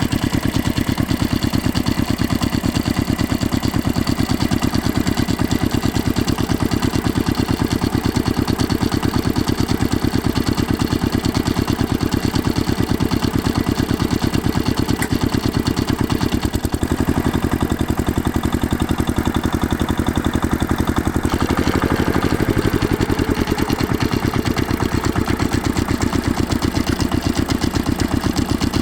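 Tractor engine running steadily at idle, a rapid even beat of firing pulses with a slight change in tone twice along the way.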